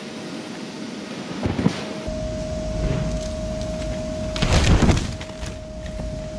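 A mountain bike and rider hit the ground hard, a loud crash near the five-second mark after overshooting the inflatable landing airbag. Under it, from about two seconds in, the airbag's blower runs with a steady hum and a low rumble. A short thump comes about a second and a half in.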